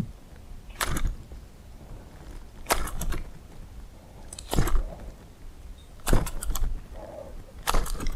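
Baitcasting reel cranked in short spurts, a cluster of rapid clicks about every second and a half to two seconds, five times, as a lure is twitched and retrieved in stages.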